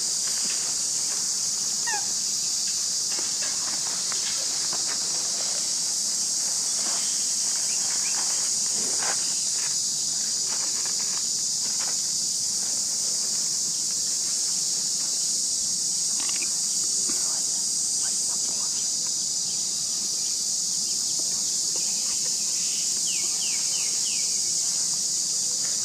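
Steady, high-pitched chorus of insects, with scattered faint clicks underneath.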